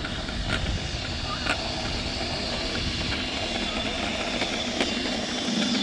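Wind rumbling on a handlebar-mounted camera's microphone while riding a bicycle, with tyres rolling over asphalt. A faint steady hum comes in about halfway through.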